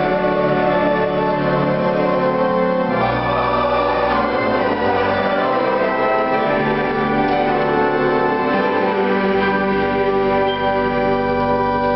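Violin and upright piano playing together, the violin holding long sustained notes over the piano's chords.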